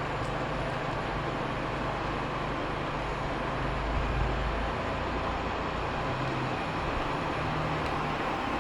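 Xiaomi Robot Vacuum E10 running as it heads back to its dock, a steady rushing noise of its suction fan with a low rumble underneath that swells briefly about four seconds in.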